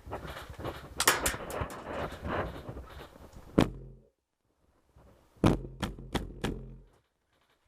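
Airsoft rifle shots, sharp cracks: a busy run of rapid shots with rustling through the first half, then after a pause about five single shots roughly a third of a second apart.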